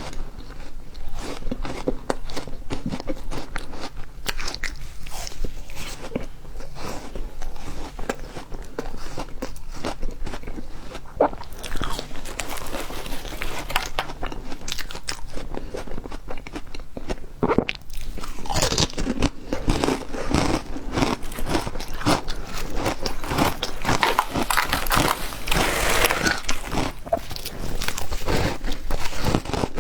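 Refrozen ice being bitten and chewed: a continuous run of crisp crunches and cracks, busier and louder around twelve seconds in and again from about nineteen seconds.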